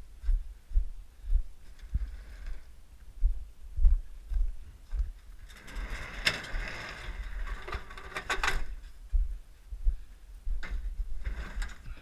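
Walking footsteps thumping on a body-worn camera's microphone, a steady series of low thumps, with a few seconds of clattering, rustling noise in the middle.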